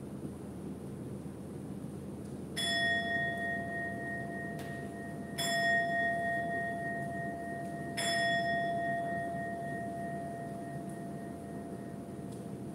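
Buddhist temple bowl bell struck three times, about two and a half seconds apart, each strike ringing on with a clear low and high tone that fades slowly, over a steady low hum of room noise.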